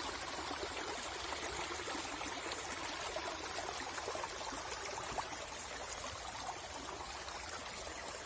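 Fast water flowing steadily along a narrow dug drainage channel through a field.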